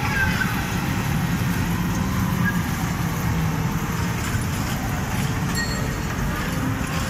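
Steady background din of a busy indoor amusement hall, with a low hum under it that fades about halfway through.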